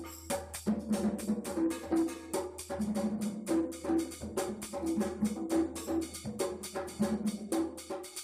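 A pair of congas played by hand in a fast rhythmic pattern, open tones alternating between a higher and a lower drum, with sharp clicking strikes from a second percussionist mixed in. The playing breaks off briefly just after the start, then runs on.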